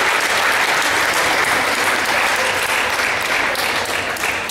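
Applause: many people clapping together in a dense, steady patter that eases off slightly near the end.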